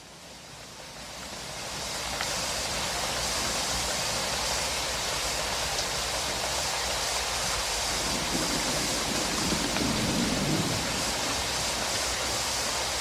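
Water rushing out through a dam's open spillway gates into turbulent river water: a steady, dense hiss of falling and churning water that fades in over the first two seconds.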